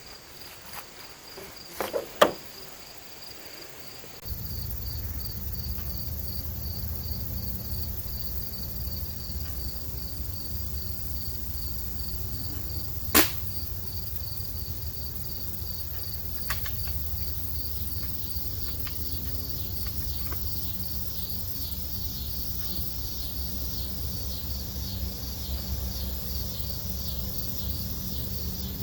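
Crickets chirping steadily while a .22 Umarex Gauntlet PCP air rifle fires once with a single sharp crack about thirteen seconds in. A couple of small clicks come about two seconds in and another near sixteen seconds. A steady low rumble sets in about four seconds in.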